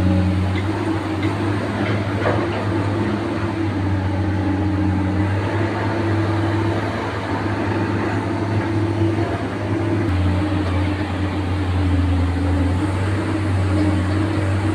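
Excavator's diesel engine running steadily under load with a low drone, its pitch shifting slightly about ten seconds in.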